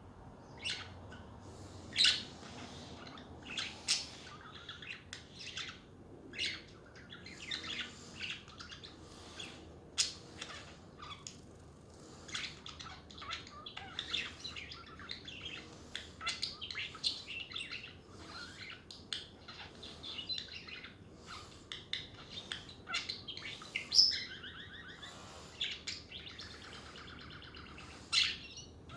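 Budgerigars chattering: a steady stream of short chirps and warbles, with a few sharper, louder calls scattered through.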